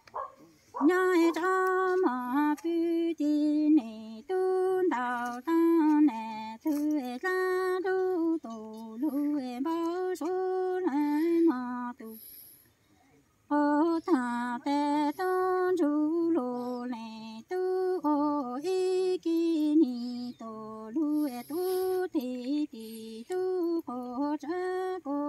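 A woman singing Hmong kwv txhiaj (sung poetry), unaccompanied. Her long held notes step between two close pitches in chant-like phrases, with a short break about halfway through.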